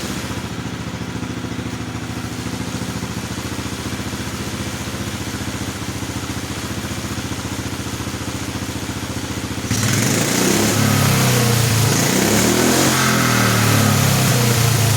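Lawnmower engine on a homemade motorcycle idling steadily, then revved up and down several times from about two-thirds of the way in.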